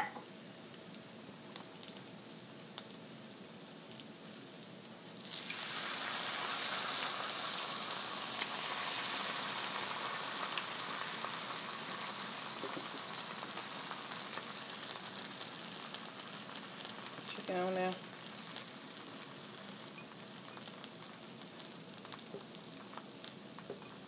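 Food sizzling on a hot flattop griddle. The sizzle is low for about five seconds, then suddenly becomes loud and hissing, and slowly dies down over the next twenty seconds.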